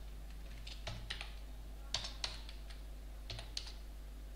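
Computer keyboard being typed on: scattered keystroke clicks in small clusters, with a steady low hum underneath.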